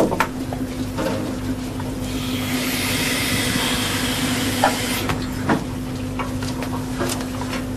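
Steady machinery hum aboard a dive support vessel, with a loud hiss that starts about two seconds in and stops abruptly about three seconds later, and a few short knocks of diving equipment being handled.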